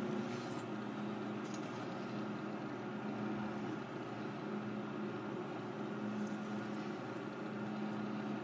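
A steady machine hum: a constant low drone over an even hiss.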